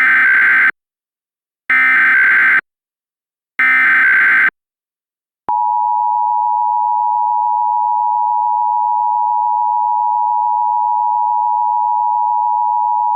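Emergency Alert System tones for a Required Monthly Test: three short, harsh bursts of SAME header data about a second apart, then after a brief pause the steady two-tone EAS attention signal, held for about eight seconds.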